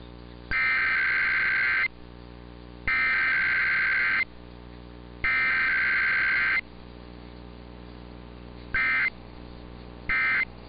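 Emergency Alert System SAME data bursts: three harsh buzzing header bursts of about a second each, then two short end-of-message bursts, over a steady low electrical hum. Header followed directly by end-of-message with no voice in between is typical of a Required Weekly Test.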